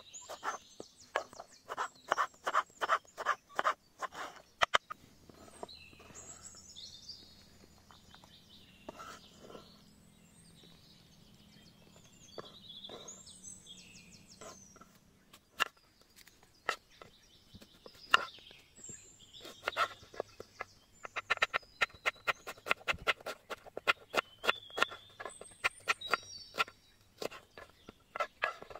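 A kitchen knife chopping quickly through tomato and then onion on a wooden cutting board: a fast run of sharp taps, a pause of about fifteen seconds with only scattered taps, then fast chopping again for the last several seconds. Birds chirp in the background, heard most clearly during the pause.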